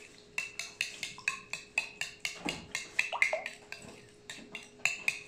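Raw eggs being beaten with a utensil in a ceramic bowl, the utensil clinking against the bowl's sides in a quick rhythm of about four strikes a second.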